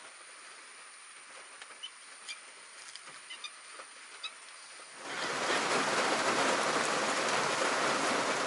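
Rain falling on shallow water: a light patter with a few small ticks at first, then about five seconds in it jumps to a loud, steady hiss of a heavy downpour.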